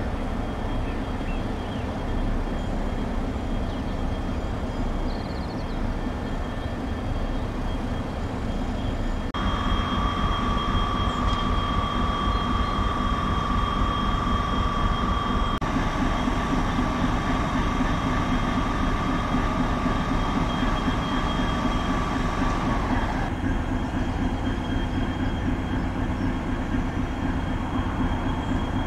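Stationary rail vehicles idling in a yard: a steady engine hum with a high, even whine, in several clips that change abruptly. A louder steady tone comes in about a third of the way through and drops out again near the end.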